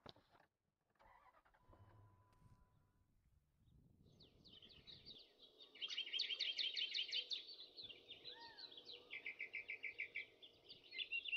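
Several small birds singing at once: quick repeated chirps and fast trills that start about four seconds in and grow dense and loud after six seconds, with a few faint knocks before them.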